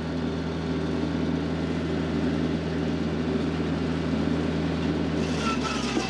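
Diesel compact tractor running steadily at 540 PTO RPM, driving a direct-drive PTO stump grinder that spins freely, smooth and balanced, with an even drone.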